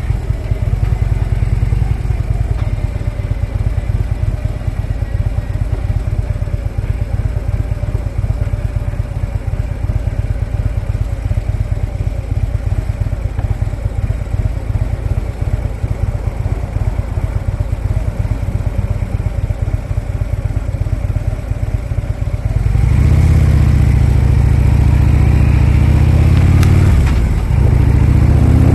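Harley-Davidson motorcycle's V-twin engine running steadily at low speed. About 23 seconds in it gets louder and climbs in pitch as the bike accelerates, dips briefly near the end, then climbs again.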